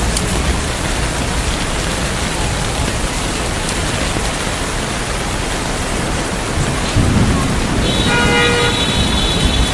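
Steady heavy rain falling, with a low rumble of thunder swelling about seven seconds in. Near the end a brief steady tone of several pitches sounds over the rain.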